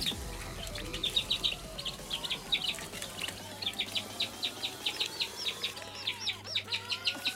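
Newly hatched karinkozhi (black chicken) chicks peeping, in quick runs of short, high-pitched cheeps several a second, while one chick is still breaking out of its shell.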